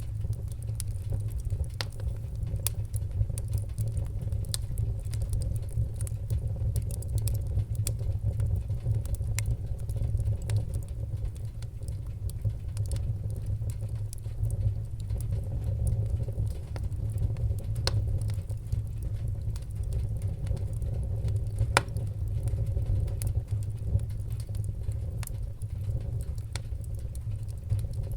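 Wood-burning fire crackling: irregular sharp pops and snaps over a steady low rumble.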